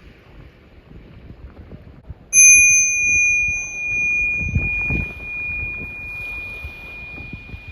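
A small meditation bell struck once about two seconds in, its high tone ringing on and slowly fading, over a steady wash of ocean waves. The bell marks the start of the meditation.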